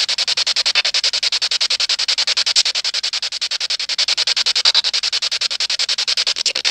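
Handheld spirit box sweeping through radio stations: choppy static, stuttering at about a dozen pulses a second.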